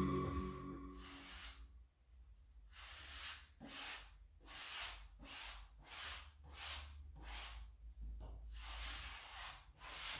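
Paper drywall joint tape being rubbed and pressed into an inside corner by hand: a series of short, faint rubbing strokes, about two a second.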